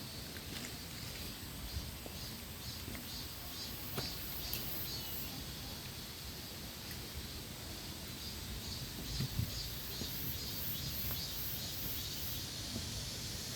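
Forest ambience: a run of high, evenly spaced chirps, about two a second, over a low steady background, with a few faint clicks.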